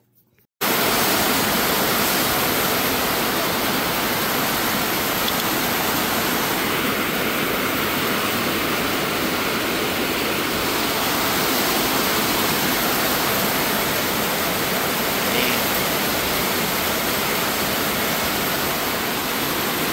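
Heavy rain pouring down in a loud, steady hiss that starts abruptly about half a second in.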